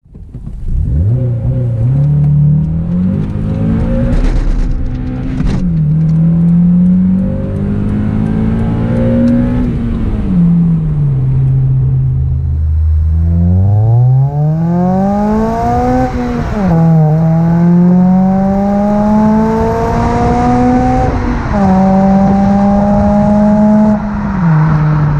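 Honda K24A3 2.4-litre inline-four with a Yonaka cat-back exhaust pulling hard through the gears of a six-speed manual, heard from the cabin. The engine note climbs and drops sharply at each upshift, then falls away as the throttle is lifted. After a brief low idle it makes a second hard pull heard at the exhaust tip, rising and dropping at three more shifts.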